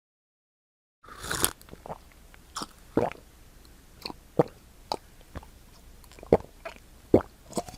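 A person gulping water: a run of close-up wet swallows and throat clicks, roughly one every half second, starting about a second in.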